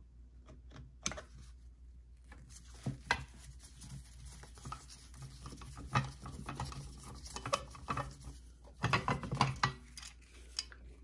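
A screwdriver working a screw out of a Singer 500J sewing machine's top cover, with scattered light clicks, scrapes and small knocks of tool and hands on the machine and a denser run of knocks about nine seconds in.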